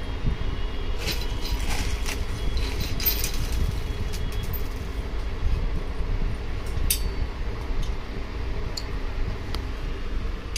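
Light clicks and taps of hard plastic as a mounting bracket is handled and fitted onto a water-filter housing, a cluster of them in the first few seconds and one sharper click about seven seconds in, over a steady low rumble.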